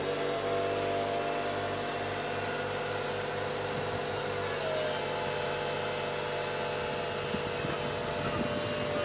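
An engine idling steadily: a continuous hum of held tones that shifts slightly in pitch about halfway through.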